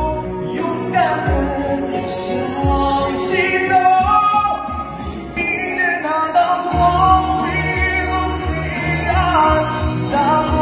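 A man singing a Mandarin pop song over a backing track played from a portable Bluetooth speaker, with a steady beat; the bass comes in fuller about two-thirds of the way through.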